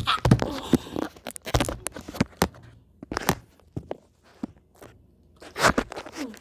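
Close-up crunching and chewing of a baked Nutella pizza crust: a quick run of crisp crunches, a sparser stretch a little past halfway, then another loud crunch near the end.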